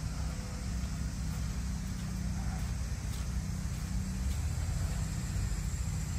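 New Holland TN75 tractor's diesel engine idling steadily, a constant low rumble.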